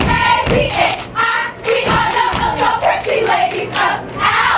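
Greek-letter step team chanting in unison over stomps and hand claps, with crowd voices around them.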